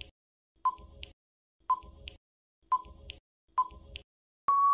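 Quiz countdown-timer sound effect: four short electronic beeps about a second apart, then a longer, steady beep at a slightly higher pitch starting near the end, signalling that time is up.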